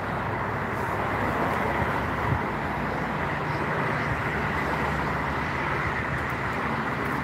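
Road traffic on the highway bridge alongside: a steady tyre hiss from passing vehicles.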